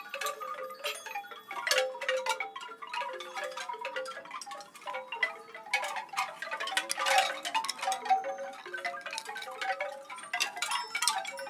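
Chimes tinkling: many short ringing notes at different pitches struck irregularly and overlapping, with a busier, louder flurry a little past the middle.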